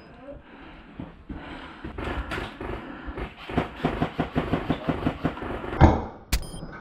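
Fast, uneven clattering for several seconds, then a single sharp crack near the end, like one shot from an airsoft rifle.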